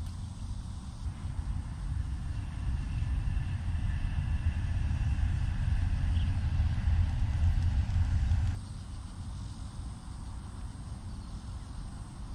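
Low rumble of road traffic on an elevated highway viaduct, swelling over several seconds and then cutting off abruptly about two thirds of the way through.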